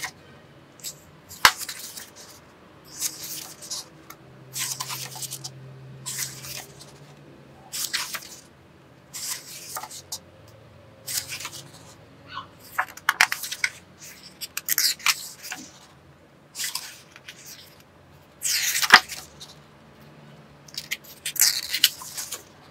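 Paper pages of a colouring book being turned by hand one after another, each turn a short, crisp rustle and flap, about one every second or two.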